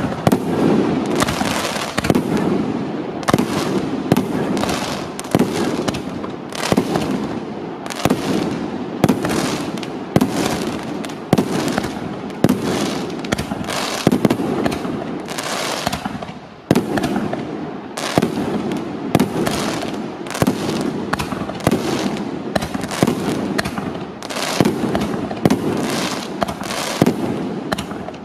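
Startrade Pyrofessional KILO ONE, a 25-shot 49 mm F3 fireworks battery, firing shot after shot, roughly one a second. Each shot brings a sharp bang, and the crackling chrysanthemum stars keep up a dense crackle between them. There is a brief lull about sixteen seconds in.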